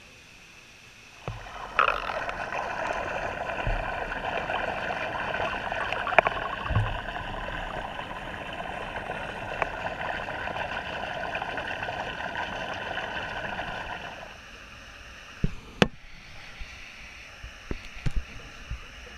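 Water splashing and rushing in a flatfish farm tank, a steady noise that starts about a second in and cuts off sharply after about thirteen seconds, followed by a few sharp knocks.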